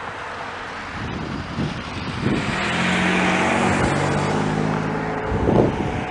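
Road traffic: a motor vehicle passes close by, with tyre noise swelling to a peak in the middle and an engine humming steadily under it, ending just after five seconds. A few brief knocks come near the end.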